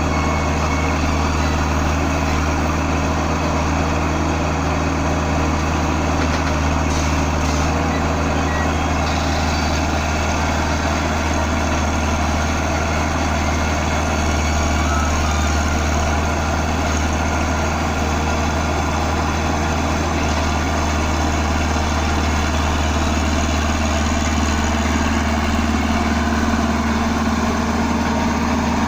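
Komatsu PC60 excavator's diesel engine running steadily with a constant low hum.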